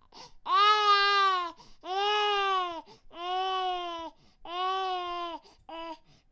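Baby crying in a run of rhythmic wails, each about a second long with short breaths between: four long cries, then a brief one near the end.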